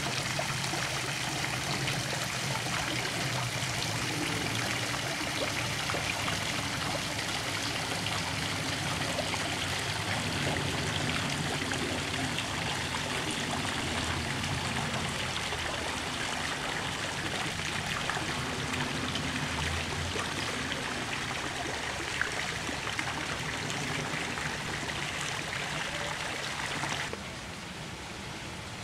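Garden fountain water splashing and trickling steadily, dropping in level near the end.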